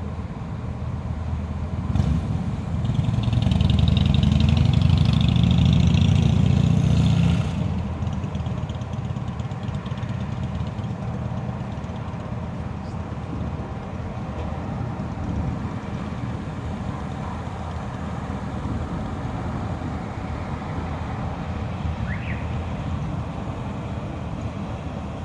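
Thunder: a sharp crack about two seconds in, followed by a loud, deep rumble that rolls for about five seconds and then drops away, over a steady background noise.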